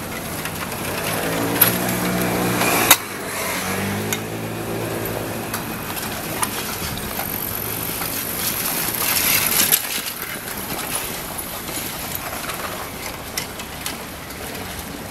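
A small engine running close by for a few seconds, with two sharp clicks, over the steady rumble and wind noise of riding a bicycle over the bridge.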